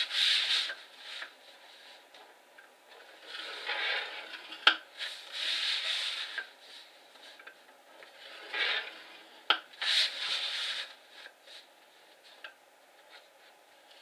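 Scoring stylus drawn through cardstock along the grooves of a scoring board: about five short scraping strokes, each roughly a second long, with a few sharp clicks in between.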